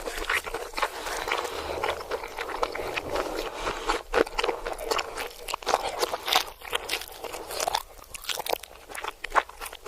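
Close-miked crunching and chewing of crisp food, a dense run of sharp irregular crunches, played backwards.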